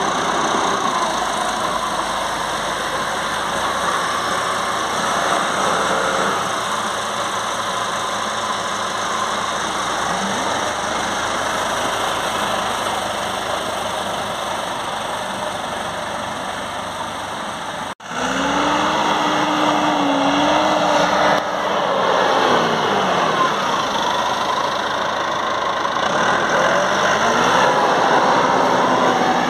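Massey Ferguson 3065 S tractor's diesel engine running steadily as it moves a load on its front loader; after a sudden cut about two-thirds of the way in, the engine revs up and down as the tractor drives.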